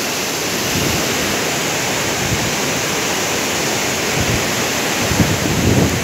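Waterfall rushing as a steady roar of falling water, with some wind buffeting the microphone near the end.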